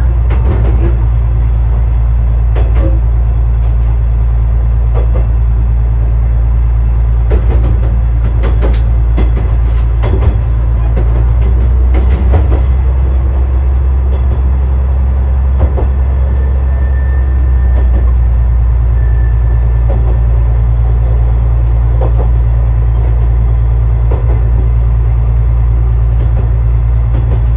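Railway train running at steady speed: a loud, steady low drone with scattered sharp clicks and knocks from the wheels and track.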